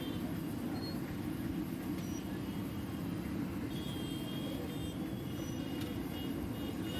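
Steady low roar of an LPG burner flame under a kadhai of hot frying oil, running evenly while a bhatura fries.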